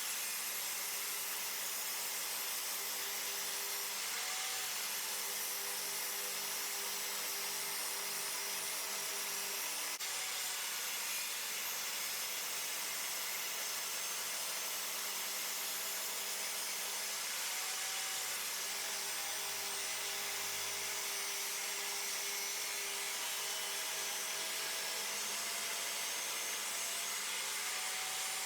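Table saw running as a 2x10 board is resawn on edge: a steady hiss of the blade cutting wood, with the motor's tone dipping briefly now and then.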